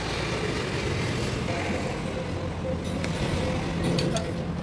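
A steady low engine-like hum, with a few light metallic clicks about three and four seconds in as a socket bar works on the diesel injection pump's delivery valve holders.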